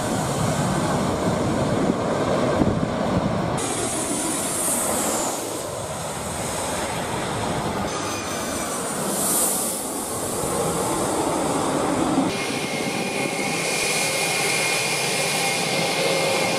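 Jet airliner engines close by as planes pass low on landing approach: a loud rushing noise with a high whine, changing abruptly a couple of times between aircraft. In the last few seconds an airliner's engines run on the runway with a steady high whine over the rush.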